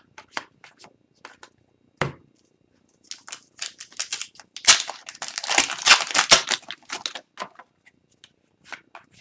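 Upper Deck hockey cards and their foil pack being handled at close range: scattered soft clicks and flicks as cards are slid and set down, with a denser stretch of crinkling and rustling in the middle.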